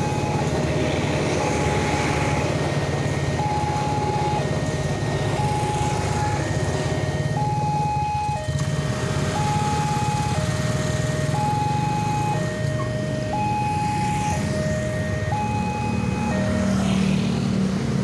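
Level-crossing warning siren sounding a two-tone alternating signal, a higher and a lower note about a second each, warning that the crossing is closed for a train. Under it is the low rumble of the train's last carriages going by, and the siren stops shortly before motorcycle engines move off across the tracks near the end.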